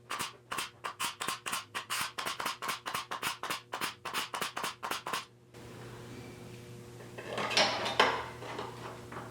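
Rapid, even metal-on-metal taps on a steel sheet piece, about five a second, stopping after about five seconds. Then a steady hiss, with a scrape and a couple of knocks near the end.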